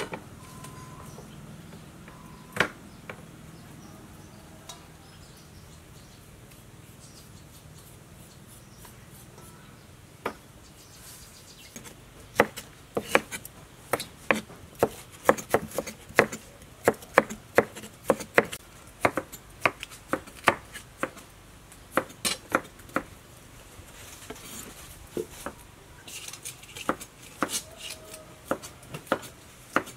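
Knife chopping lotus root on a round wooden cutting board. A few lone knocks come first. About twelve seconds in, a steady run of sharp knocks begins, about two a second, and thins out again near the end.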